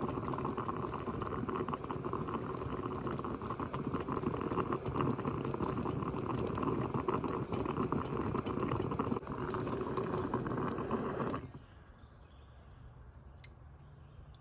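Stovetop percolator coffee pot bubbling and gurgling as it percolates on a canister camp stove, over the steady hiss of the burner. About eleven seconds in the burner is shut off and the sound drops suddenly to faint bubbling.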